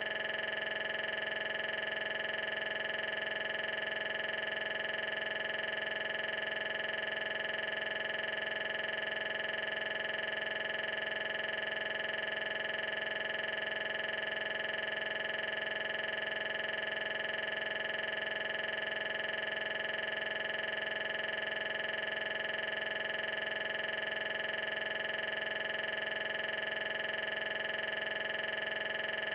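A steady, unchanging electronic drone of several fixed pitches with no rise or fall, not the sound of a car passing.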